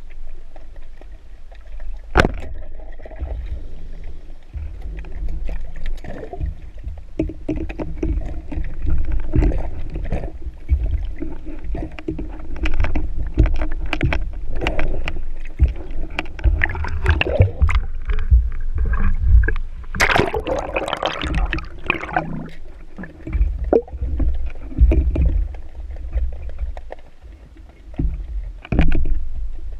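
Sea water sloshing and gurgling around a diver's camera, a loud, uneven low rumble scattered with clicks. A louder burst of noise comes about twenty seconds in.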